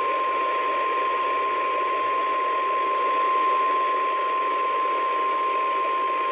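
NOAA Weather Radio warning alarm tone: a single steady 1050 Hz beep held over radio static, the signal that a spoken weather warning is about to follow.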